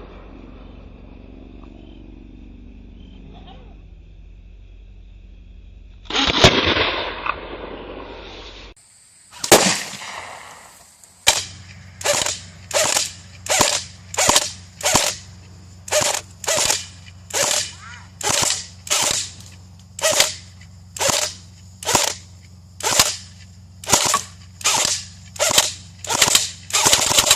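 Sharp gunshot-like bangs: one about six seconds in with a long fading tail, another near nine and a half seconds, then an even run of about twenty bangs, a little over one a second, lasting to the end.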